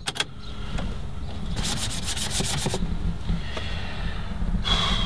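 A truck's starter circuit on a flat 24-volt battery bank, chattering briefly when the key is turned: a quick run of rasping clicks, about seven a second for just over a second, and the engine does not start. A rushing noise with a high steady tone comes in near the end.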